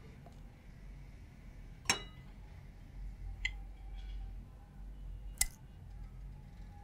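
A mug and saucer clinking: three sharp clinks of china, about two, three and a half and five and a half seconds in, the first and last the loudest, the first as the mug is set down on its saucer. A low hum underneath.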